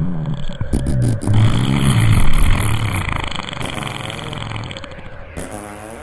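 A long, low fart sound, wavering in pitch and fading gradually toward the end.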